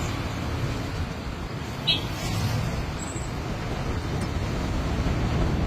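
Steady low rumble of road traffic, with a single sharp click about two seconds in.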